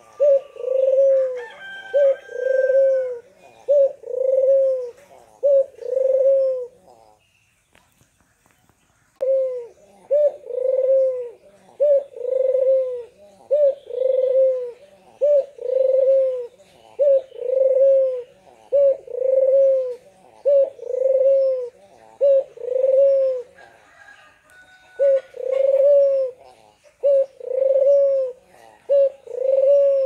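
White domestic ringneck (Barbary) dove, a puter, bow-cooing over and over: a short rising note into a longer held coo, about one a second. It pauses for about two seconds early on and briefly again later. This is the steady, vigorous cooing that keepers call gacor.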